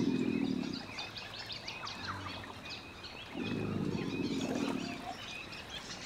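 American alligators bellowing in a dominance display: a deep, rough, pulsing bellow fades out within the first second, and another starts about three seconds in and lasts under two seconds. Faint high chirps sound in the background.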